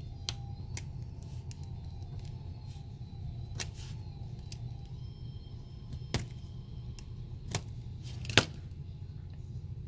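Utility knife blade cutting and scraping at heat-shrink tubing on an electronic component: a scatter of sharp clicks and scrapes, the loudest near the end, over a steady low hum.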